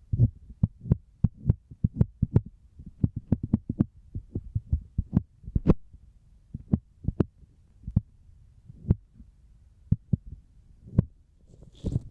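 Fingertips tapping on the outer ear of a binaural microphone: dull, low taps in quick, uneven runs with short pauses, a few louder and sharper than the rest.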